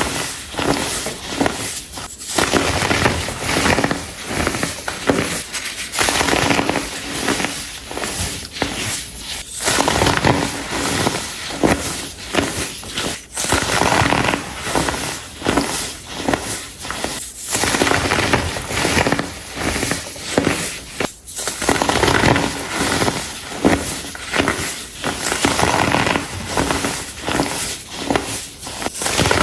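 Compressed baking soda blocks being crushed and crumbled, a dense run of crunching and crackling with a squeaky edge, in pulses a few seconds long with short pauses between.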